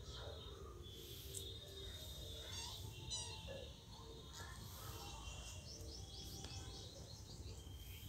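Birds chirping and calling faintly in the background, with a quick run of short repeated chirps in the second half.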